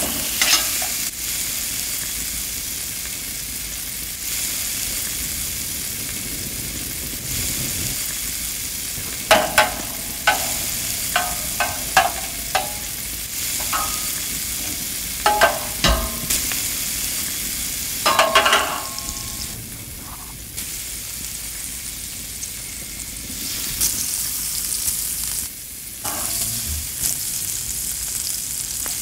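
Thick porterhouse steak and its dripping fat sizzling on the V-channel grates of a wood-fired Argentine-style grill. It is a steady hiss, broken by clusters of sharp pops and clicks from about a third to two-thirds of the way through.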